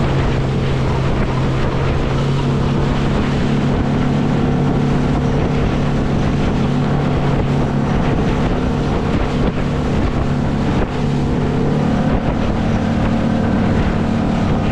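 A RIB's engine running steadily at speed while it chases across open water, with wind buffeting the microphone and water rushing past the hull.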